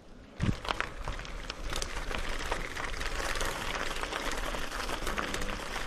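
Noise of a bicycle being ridden, picked up by a bike-mounted action camera: a steady rush with scattered clicks and knocks, coming in suddenly about half a second in.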